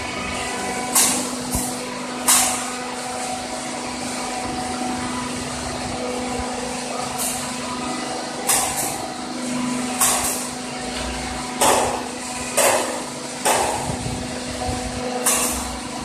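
Pit-type gas carburising furnace plant running with a steady hum, broken by about a dozen short, sharp hisses at irregular intervals.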